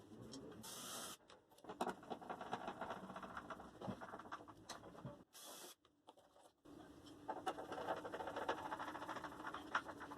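Faint scratching and ticking from hand work on wood, broken twice by abrupt drops to near silence.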